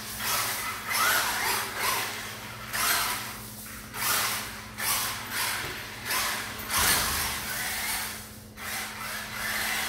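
Electric motor and gear drivetrain of a Wltoys 10428 B2 1:10 4WD RC rock crawler whirring in short, repeated bursts as the throttle is worked on and off.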